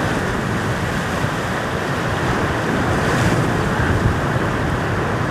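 Ocean surf in a heavy swell: a steady rush of breaking and washing water.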